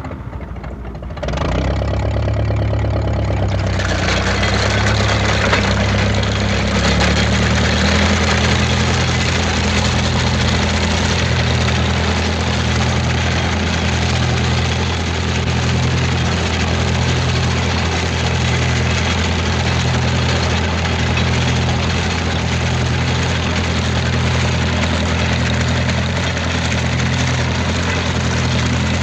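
Ferguson tractor engine starting: a short stretch of cranking, then the engine catches about a second in and settles into steady running with a low, even throb.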